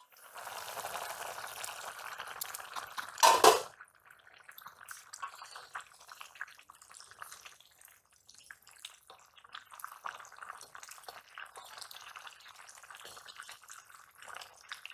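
Malabar spinach (pui shak) cooking wet in an aluminium wok over a wood fire, hissing and bubbling as the lid comes off, with one loud clatter about three seconds in. After that, a wooden spatula stirs and scrapes the greens, with crackling and small knocks.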